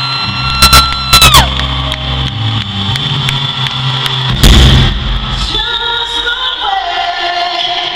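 Live band playing in an arena: bass guitar and drum hits under a held high note that slides down about a second and a half in, then a loud crash about four and a half seconds in. A sung line comes in about five and a half seconds in over the band, with the crowd cheering.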